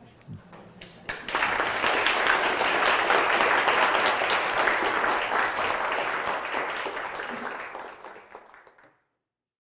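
Audience applauding. The clapping starts about a second in, thins out near the end and is then cut off abruptly.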